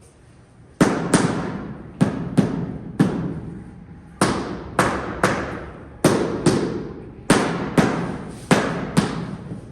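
A rubber mallet strikes a large-format floor tile about fourteen times, mostly in quick pairs, to bed it into the mortar. Each strike is a loud thud that rings out briefly.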